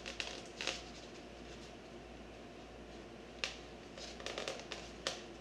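A handful of small sharp clicks and taps, with a little faint scraping, from fingers and fingernails picking and pressing at the foam fuselage of a model jet.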